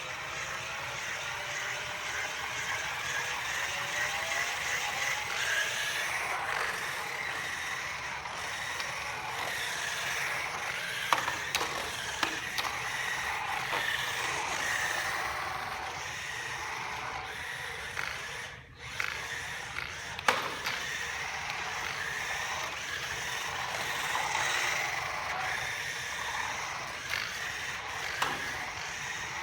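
Modified Roomba Discovery 4210 driving fast on its 600 RPM planetary gear motors: a mechanical whine that rises in pitch over the first few seconds, with wheel and body scraping throughout. A few sharp knocks stand out, two close together about 11 to 12 seconds in and one about 20 seconds in.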